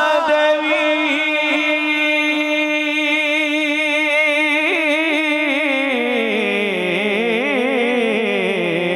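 A man singing a Punjabi naat into a handheld microphone, drawing out one long, wavering note with no words. From about six seconds in, the note slides down in pitch.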